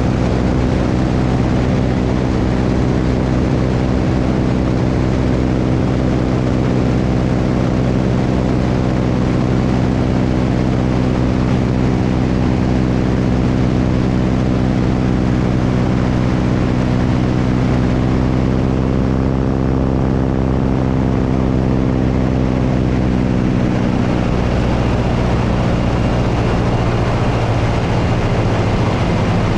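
Propeller airplane's piston engine and propeller running steadily in flight, a stack of even engine tones under a constant rush of noise. The engine note shifts about four-fifths of the way through.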